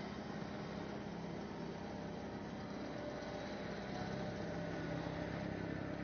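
John Deere tractor engine running steadily, a continuous drone that grows a little louder near the end.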